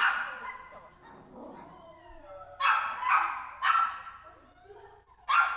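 Dog barking in short sharp barks: one at the start, three in quick succession about midway, and one more near the end, with a short echo after each.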